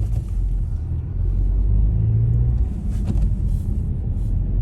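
Steady low road and engine rumble heard inside a moving car's cabin, with a few faint sharp pops, the clearest about three seconds in.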